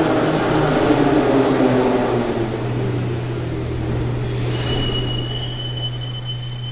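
Metro train pulling into a station and braking. The rumble of the wheels and running gear is loud at first and fades as the train slows, over a steady low hum. About four and a half seconds in, a thin, high, steady brake squeal starts and holds as the train comes to a stop.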